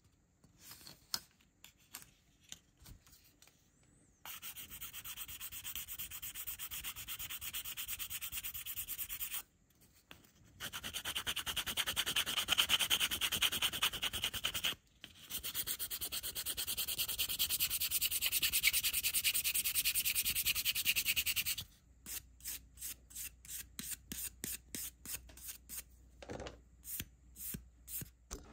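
Sanding stick rubbing across a clear plastic model-car window part, scuffing it: a steady scratchy hiss in long runs broken by short pauses. In the last several seconds it turns to separate quick strokes, about three a second.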